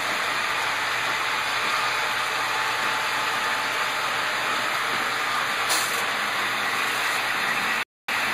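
HO-scale model freight train running past on the layout track: a steady whir of wheels and motors. The sound cuts out for a moment near the end.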